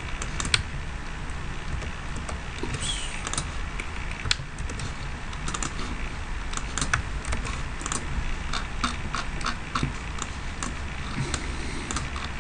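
Typing on a computer keyboard: scattered key clicks, with a quicker run of keystrokes about eight to ten seconds in, over a steady low background noise.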